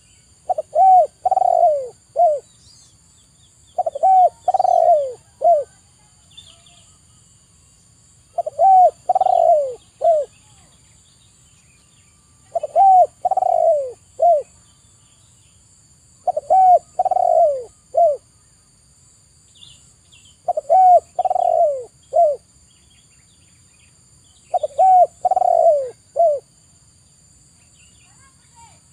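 Spotted dove cooing: a phrase of four low coos, a short note, two longer falling ones and a short last one, repeated about every four seconds, seven times.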